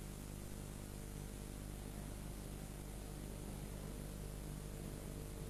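Steady hiss with a low electrical hum underneath: the background noise of an old recording and its sound system, with no voice.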